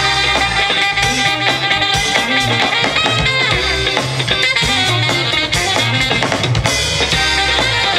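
Live rock band playing through a PA: a drum kit keeping a steady beat under electric bass, electric guitar and saxophone.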